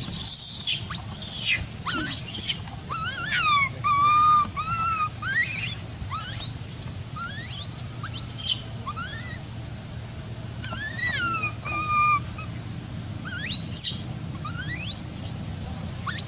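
Young long-tailed macaque crying in distress: a string of shrill, high squeals and screams, some sweeping sharply up in pitch and others held with a wavering, warbling tone. These are the frightened cries of a juvenile after an attack.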